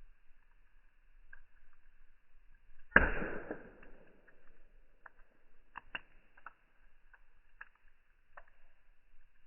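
Fire crackling, slowed down: one sudden loud pop with a whoosh about three seconds in that fades over about a second, followed by scattered small crackles.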